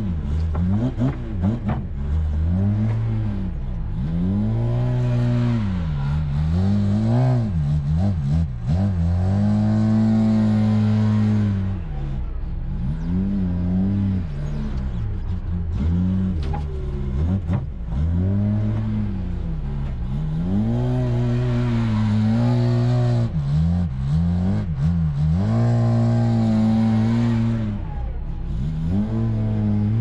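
Wheel loader's diesel engine revving up and falling back again and again as it lifts and dumps buckets of loam into a steel dump truck body. Loam pours and rattles into the bed.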